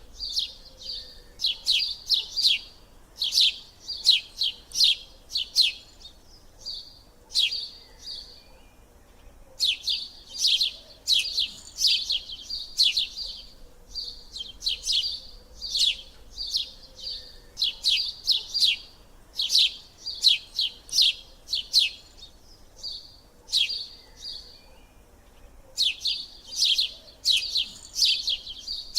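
A small bird chirping in quick runs of short, sharp high chirps, several a second, with brief pauses between the runs.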